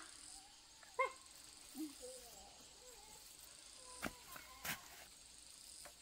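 Steady, faint, high-pitched chirring of insects such as crickets. About a second in there is a short high voice sound, and two light clicks or knocks come at around four and nearly five seconds.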